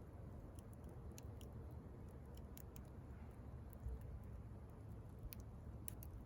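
Wood fire crackling quietly: scattered sharp pops and ticks at irregular intervals over a low steady rumble.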